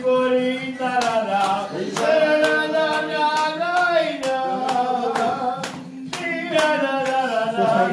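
Singing accompanied by rhythmic hand clapping, about two claps a second.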